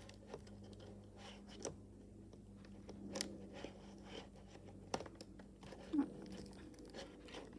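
Faint scattered clicks and light crunching of plastic laptop parts being handled and pressed into place, over a low steady hum.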